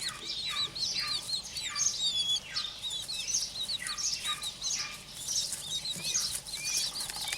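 A group of newly hatched quail chicks peeping: many overlapping high chirps, with louder falling peeps repeating about twice a second.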